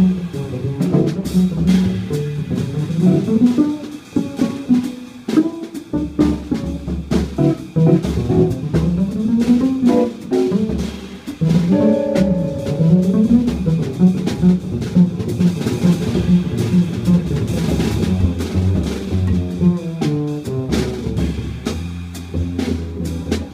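Live jazz trio playing: an archtop electric guitar's winding lines over upright double bass and a drum kit with cymbals.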